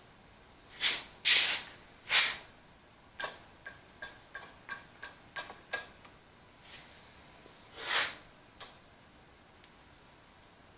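Metal timing cover being fitted by hand against the front of a tractor engine block: a few sharp clunks, then a run of about ten light metallic clicks with a slight ring, and another clunk about eight seconds in.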